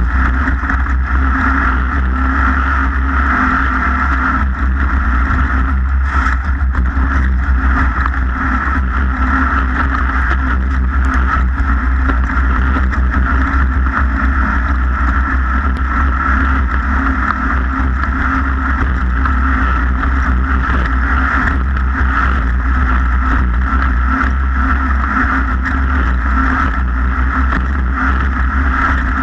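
A race vehicle's engine running hard in a steady, unchanging drone, close and constant in level.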